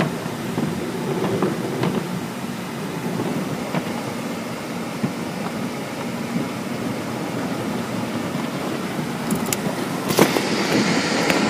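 Automatic tunnel car wash heard from inside the car: cloth brushes scrubbing and slapping against the glass and body over a steady rumble, with scattered knocks. About ten seconds in, a hiss of spraying water gets louder.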